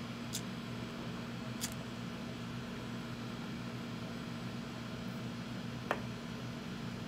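A lighter clicks three times while a glass hand pipe is lit: about a third of a second in, about a second and a half in, and near the end. Under the clicks runs a steady hiss with a low hum.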